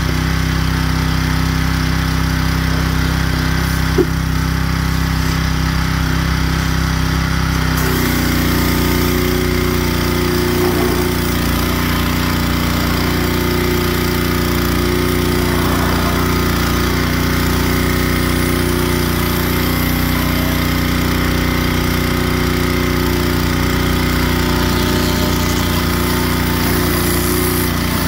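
North Star 3000 PSI, 3 GPM gas pressure washer's engine running steadily. About eight seconds in its note changes and the hiss of the surface cleaner spraying water onto concrete joins in; a single short click comes about four seconds in.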